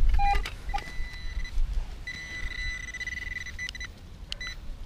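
Metal detecting pinpointer probing a dug hole, sounding a steady high beep for about a second and a half, then short separate beeps near the end: the tone signals metal close to the tip. A low rumble of wind on the microphone is loudest at the start.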